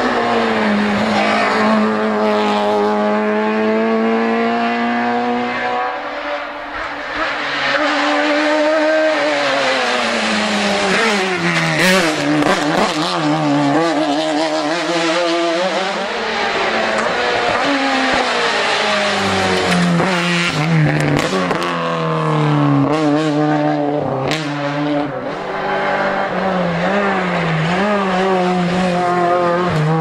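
Touring race cars at full throttle on a hillclimb road, a Peugeot 205 first, then others. The engines rev hard, and the pitch climbs and then drops sharply at each gear change or throttle lift.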